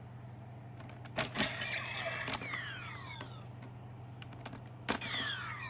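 Kamen Rider Double toy transformation belt: a sharp click as a Gaia Memory is pushed in about a second in, then the toy's electronic sound effect with several quick falling sweeps; a second click near the end sets off the same kind of falling sweeps again.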